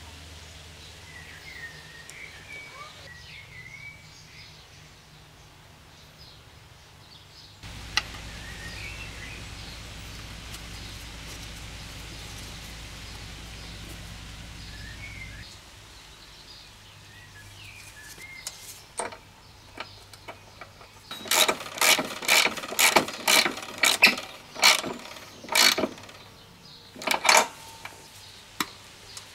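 A run of about a dozen sharp metallic clicks, each ringing briefly, from hand tools worked on a mower engine, coming in the last third. Before them, birds chirp faintly over a low hum.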